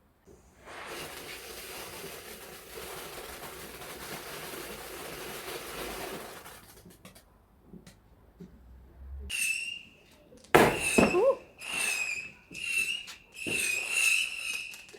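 Fireworks: a steady hiss for about six seconds, then a run of short whistling bursts with a sharp crack about ten and a half seconds in.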